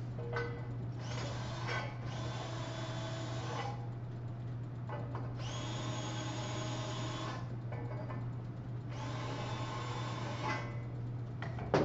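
Cordless drill spinning a countersink bit against the edges of drilled holes in a steel I-beam, cutting off the burrs, in three bursts of about two seconds each.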